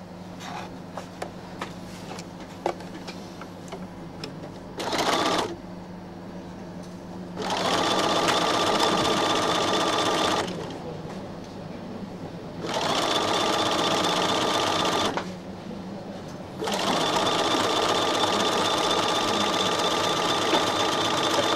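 Bernina sewing machine stitching a seam through quilt fabric in three runs of a few seconds each, with short pauses between. Before the runs there are a few light clicks and one brief start.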